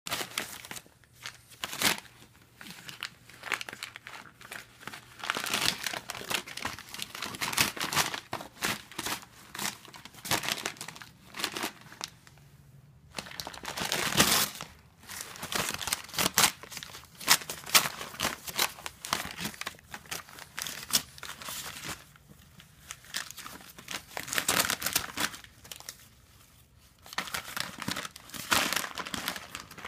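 An English bulldog puppy chewing and pulling at tissue paper and a paper bag: irregular bouts of paper crinkling and tearing, broken by short pauses.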